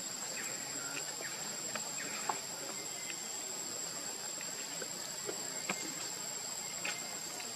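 Forest insects droning steadily in one high-pitched tone, with a few faint short clicks scattered through.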